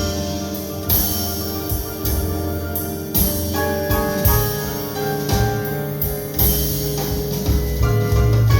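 Jazz piano trio recording, with piano, upright bass and drums with cymbals, played back through Definitive Technology Mythos ST floorstanding speakers. The bass is strong.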